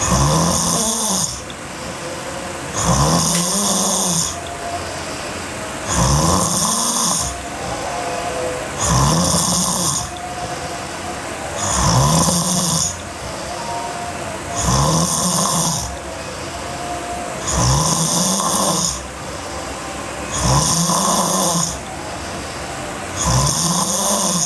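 A girl snoring heavily in her sleep: a loud snore about every three seconds, nine in all, each with a low pitch that rises then falls, and quieter breathing between them.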